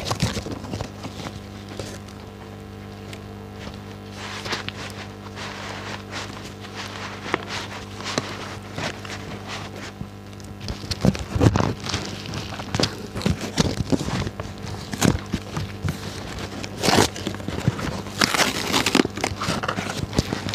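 Background music with held low notes, over the crackling and crinkling of packing material being unwrapped at sped-up speed. The sharp clicks and crackles come thicker and louder in the second half.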